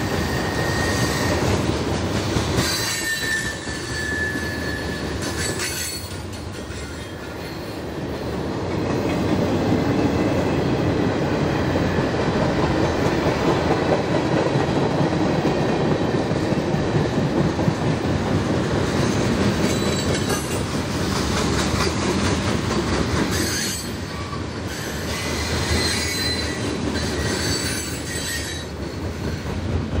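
Freight cars rolling past in a steady run of wheel-on-rail rumble and clatter. A thin high wheel squeal sounds several times, near the start and again in the last third.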